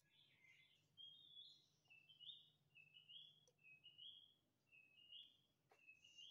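A bird singing faintly, repeating a short phrase of a lower note stepping up to a higher one about six times, roughly once a second, over a low steady hum.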